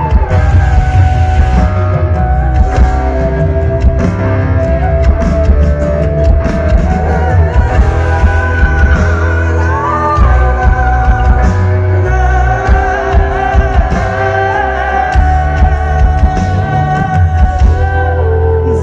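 Live rock band playing loud through a concert PA, with a singer's voice over heavy bass.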